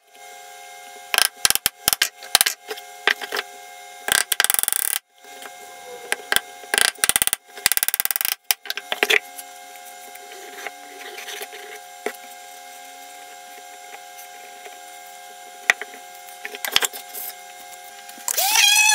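Plywood box parts being handled and fitted together: sharp clicks, taps and knocks of thin wood, with two longer spells of dense crackle, over a faint steady hum. Just before the end an orbital sander's motor starts with a quickly rising whine that settles into a steady tone.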